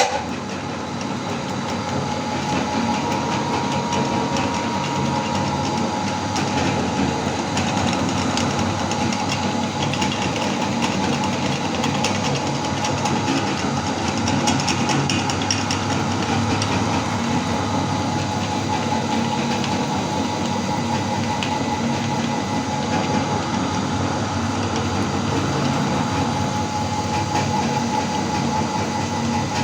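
Meat grinder motor starting abruptly and running steadily, a constant whine over a rattling churn, as it grinds jelly candy.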